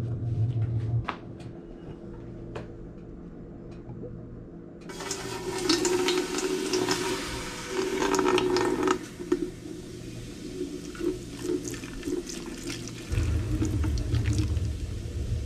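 Beer poured from glass bottles into an empty enamelled steel stock pot, splashing and fizzing against the bottom of the pot. The pouring starts about five seconds in, is loudest for the next few seconds, then goes on more softly; a few light clicks come before it.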